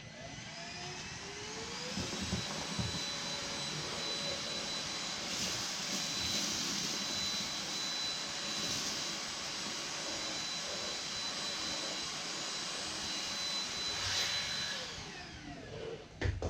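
Dibea C17 cordless stick vacuum running with the crevice tool on its wand: the motor spins up with a rising whine, runs steadily with a high whine and a rush of suction as it picks up a pile of dirt, then winds down near the end.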